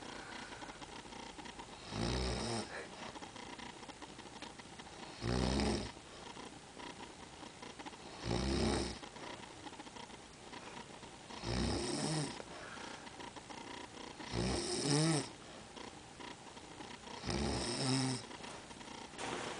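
An elderly woman snoring in her sleep: six snores, evenly spaced about one every three seconds, with quiet breathing between them.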